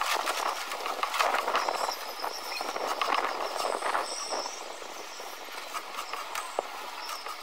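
Rapid, scratchy scraping strokes of a two-handed scraper graining a raw deer hide stretched over a wooden beam, dense for the first few seconds and thinning out after about four seconds.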